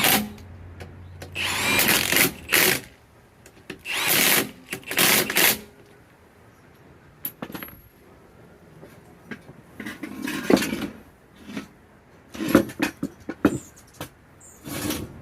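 A power tool run in several short bursts with quieter gaps and metal clicks between, driving in the lug bolts on a newly fitted wheel.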